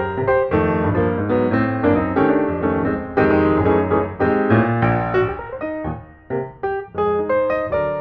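Piano music: a steady run of struck notes, thinning briefly to a few single notes about six seconds in.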